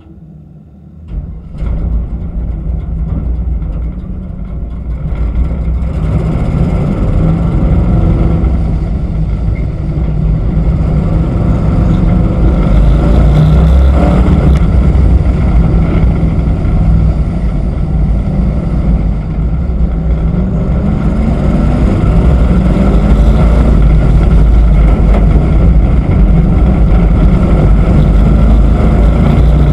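Race pickup truck's engine heard on board, running under throttle: it jumps up sharply about a second in, builds over the next several seconds as the truck gets up to speed on the oval, then runs loud and steady.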